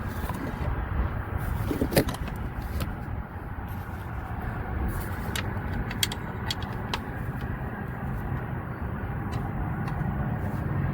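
Steady low rumble with scattered light clicks and knocks from hand work on the truck's parts and bolts; the sharpest knock comes about two seconds in, another about six seconds in.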